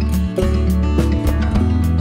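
Background music with a steady beat of about two beats a second over sustained bass notes.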